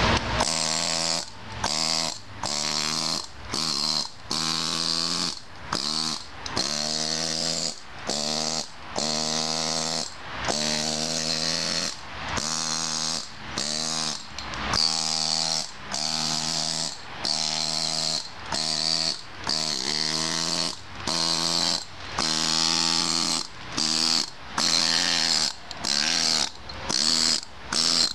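Hand-held angle grinder working the inside of a kersantite stone basin, its motor whine and the grit of the disc on stone coming in short passes that break off about once a second.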